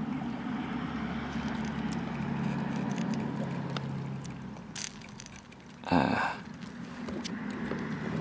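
Faint clicks and small rattles of a crankbait's hooks being worked out of a bluegill's mouth by hand, over a low steady hum. About six seconds in, one brief loud scuff.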